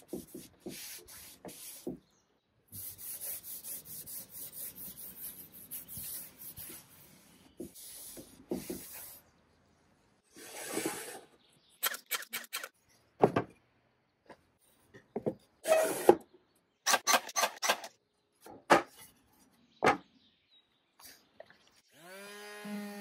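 Cloth rubbing finish onto a wooden board in quick back-and-forth strokes, followed by a scattered run of sharp knocks and clicks, with background music coming in near the end.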